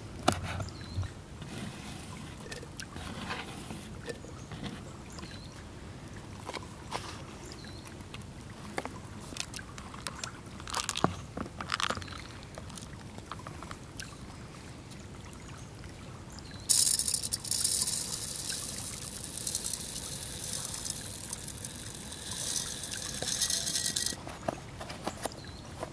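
Faint knife taps and handling knocks on a wooden board, then dry barley grains poured into a clay pot: a dense, hissing rattle that starts suddenly about two-thirds of the way through, runs for about seven seconds and stops abruptly.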